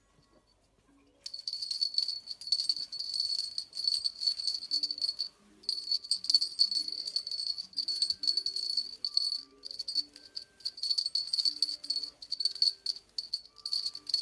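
A rattle shaken in quick bursts, starting about a second in and pausing briefly twice, over soft music with a few low notes.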